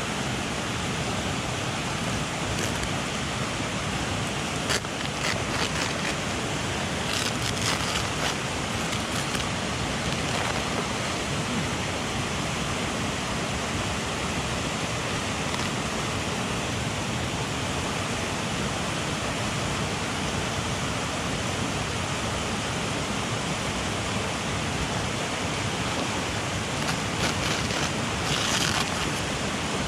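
Mountain headwater stream rushing steadily over rocks, with a few faint clicks about five to nine seconds in and again near the end.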